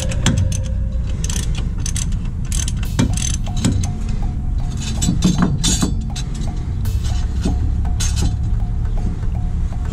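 Ratchet wrench clicking and metal clinking as the front wheel hub bolts are backed out, over a steady low rumble.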